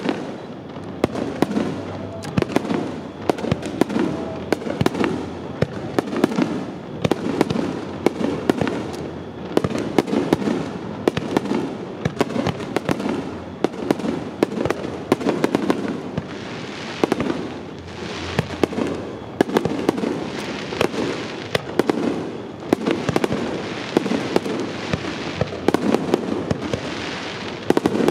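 A dense barrage of fireworks: many bangs and sharp crackles in quick succession, with deep booming shell bursts every second or two, echoing.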